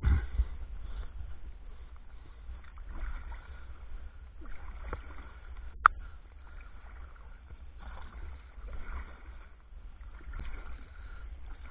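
Kayak paddling with a western red cedar Greenland paddle: a soft swish of water from each stroke, about every one and a half seconds, over a steady low rumble. A single sharp knock about six seconds in.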